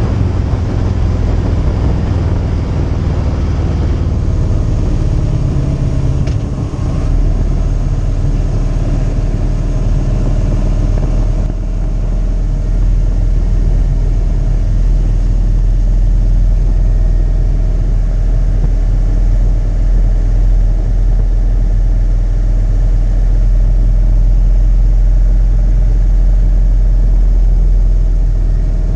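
Motorcycle riding at road speed: the engine runs steadily under a heavy, low wind rumble on the bike-mounted microphone. The deep rumble grows stronger about seven seconds in.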